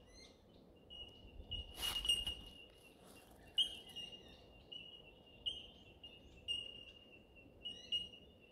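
Bell miners (bellbirds) calling: a chorus of short, clear, ringing notes at one pitch, repeated over and over, with other small birds chirping higher above them. A brief rush of noise about two seconds in.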